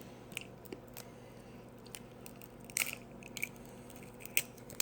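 Ice being bitten and crunched between the teeth, a string of irregular sharp crunches, the loudest about three seconds in and again near the end.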